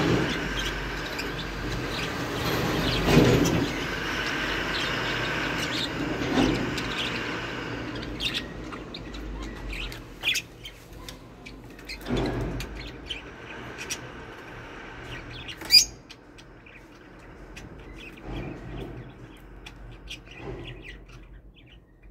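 Small cage birds chirping in short, sharp calls scattered through, with one louder, piercing call a little before the sixteen-second mark. A steady rushing background noise underneath fades out after about eight seconds.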